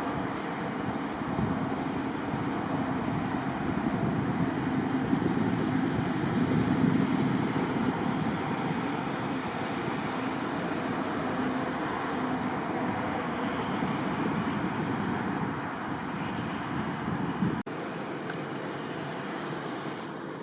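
Jet airliner engine noise, a steady rushing roar with a low hum that swells and eases, mixed with wind on the microphone. About three seconds before the end it cuts off abruptly to a quieter wind-like background.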